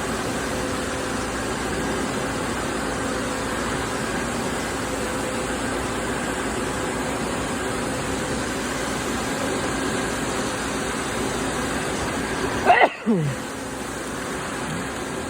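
CNC lathe running steadily while machining, a hum with several steady tones. Near the end, a short, loud sound sweeps quickly down in pitch.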